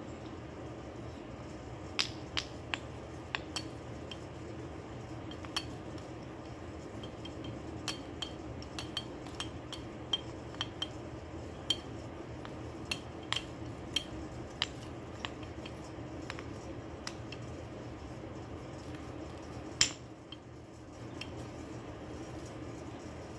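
Irregular light clicks and taps of a clown marionette's limbs knocking against a hard painted prop as it is danced, with one louder knock near the end, over a steady low hum.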